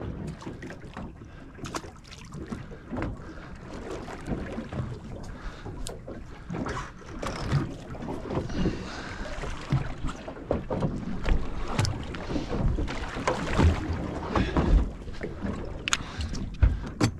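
Water slapping against a small boat's hull with wind on the microphone, broken by scattered knocks and clicks of gear being handled aboard.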